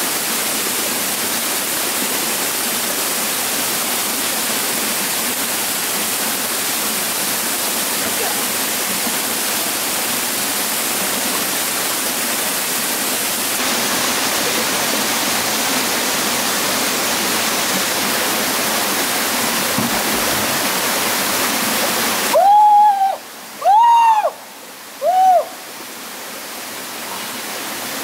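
Steady rushing of a small waterfall and stream pouring over rocks. About three-quarters of the way through, the water noise drops away and three loud calls sound, about a second apart, each a single tone that rises and falls. Then the rushing water slowly returns.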